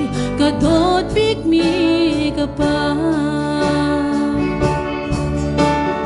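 A woman singing solo into a microphone over instrumental accompaniment; past the middle her voice drops out and the accompaniment carries on alone.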